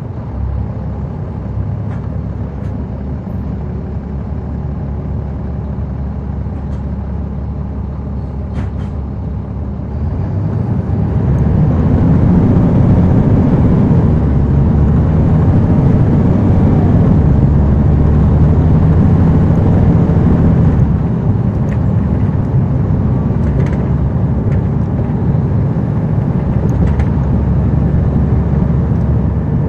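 Caterpillar C13 diesel engine of a NABI 40-SFW transit bus, heard from the rear seats inside the bus. It runs steadily, grows louder and stronger about ten seconds in as it works harder, then drops back a step about twenty seconds in and runs on evenly, with a few faint clicks and rattles.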